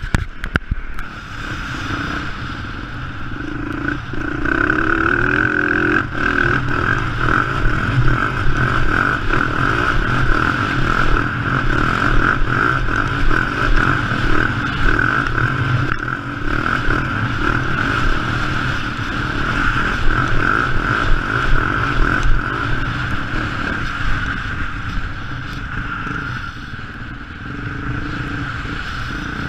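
Yamaha WR dirt bike engine running as the bike is ridden over a bumpy dirt track, its loudness rising and falling, with clatter and knocks from the rough surface.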